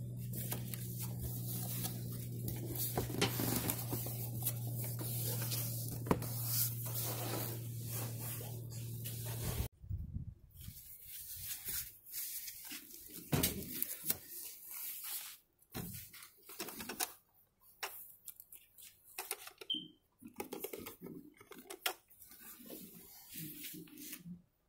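Handling noise from unpacking a file safe: about ten seconds of rustling and scraping over a steady low hum, which cuts off suddenly. Then scattered crinkling and rustling as a thin foam wrap is peeled off the safe's plastic lid, with a few light knocks.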